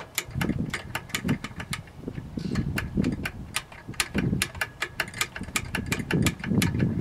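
Small metal clicks and snaps, several a second and uneven, from the throttle linkage on a Tecumseh HS40's carburetor being worked back and forth by hand to free a sticking throttle plate after oiling it. Low rubbing thumps come between the clicks.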